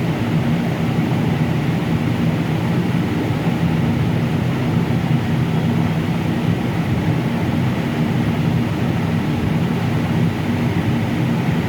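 A steady, loud, low mechanical drone with a hum, running without a break.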